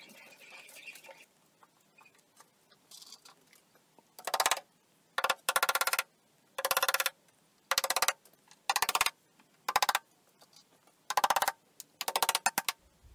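Small hammer tapping glued wooden dowels home into holes in a wooden cabinet side. Short bursts of quick, sharp taps start about four seconds in and come about nine times.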